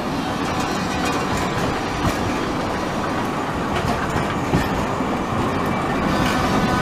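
TW 6000 articulated tram passing close by at low speed, a steady rumble of its wheels running on the rails with a few faint clicks.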